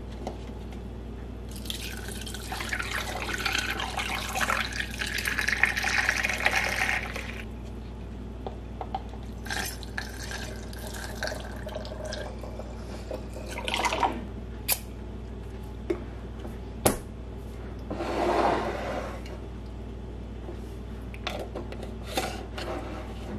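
Homemade gingerbread coffee creamer poured from a stainless steel saucepan through a plastic funnel into a glass mason jar. A steady pour runs for about five seconds, then come shorter pours and the clicks and knocks of glass jars, funnel and pan being handled.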